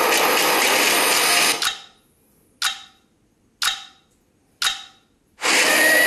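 Steady rush of falling water that cuts off abruptly about a second and a half in. Three sharp hits follow, about a second apart, each fading fast, with near silence between them. The rush of water returns just before the end.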